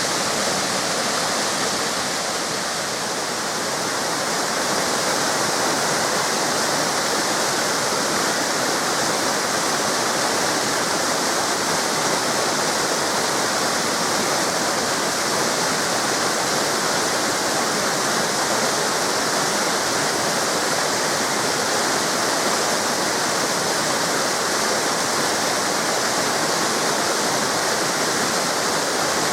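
Waterfall cascades and river water rushing and splashing steadily, a continuous hiss with no breaks.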